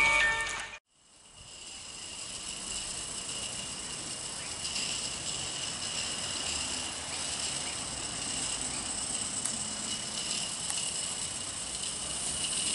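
Background music ends within the first second, then a steady high chorus of insects chirring in the bush, with a faint hiss growing near the end.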